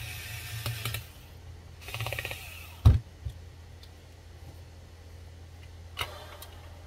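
Plastic printer parts clattering and clicking as they are handled and fitted together, in two short rattling spells, then a loud dull knock about three seconds in and a lone click near the end.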